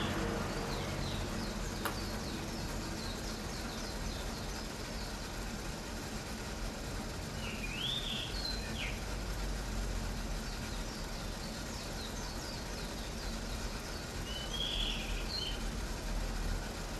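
Water softener making an abnormal noise that persists even after the unit was replaced with a new one: a steady hiss and hum, with a short rising-and-falling whistling squeal twice, about eight seconds in and again near the end.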